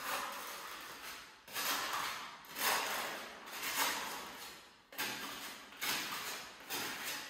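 A steel trowel scraping, about one stroke a second, seven times. Each stroke starts sharply and fades, typical of spreading tile adhesive for porcelain floor tiles.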